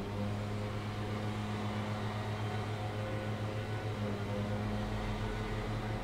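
An engine running steadily at one constant low pitch, a continuous hum with overtones.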